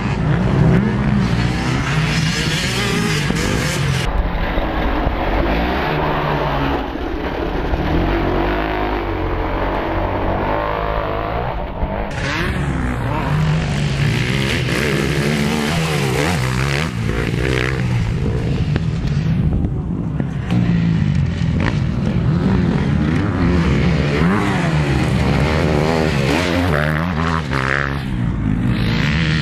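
Motocross bike engine revving up and down over and over as it is ridden round a dirt track, its pitch rising and falling with the throttle.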